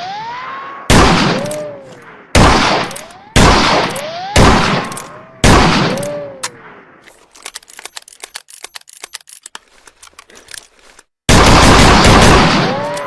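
Ruger Blackhawk single-action revolver fired five times, about a second apart, each shot ringing out and fading. A few seconds of quick light clicks follow, then one more loud, longer blast near the end.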